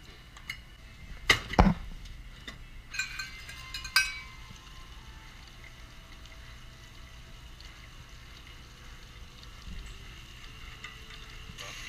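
Kitchen clatter: a few sharp knocks and metal clinks in the first four seconds as a measuring spoon and containers meet a stainless steel mixing bowl and counter, then only a low hum. Just before the end a KitchenAid stand mixer starts with a steady whir.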